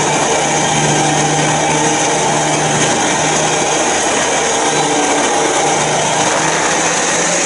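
Electric trailer winch running steadily under load, pulling a street-stock race car up onto the trailer on its strap.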